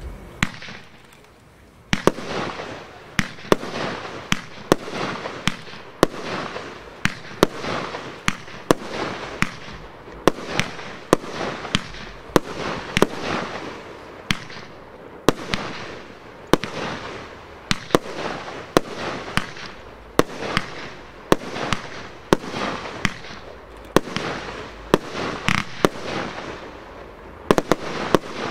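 Evolution Fireworks 'Polaris', a 25-shot 30 mm consumer firework battery, firing through its shots. A sharp bang comes about every second or less, with a hiss between the bangs, and the shots stop near the end.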